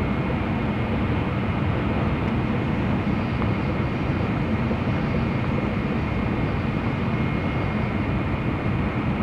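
Inside a Shinkansen bullet train's passenger cabin at speed: a steady rumble and rushing noise, with a faint steady high whine over it.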